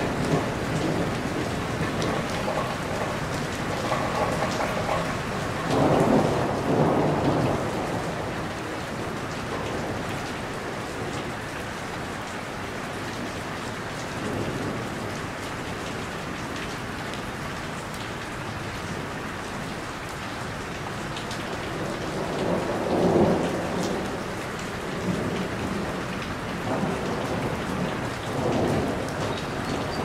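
Heavy rain pattering steadily on a roof, with two louder, fuller swells, one about six seconds in and one a little after twenty seconds.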